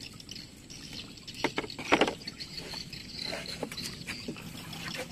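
Water splashing and dripping as a wire-mesh fish trap is hauled up out of the water beside a boat, with a quick run of sharp knocks about two seconds in, the loudest moment.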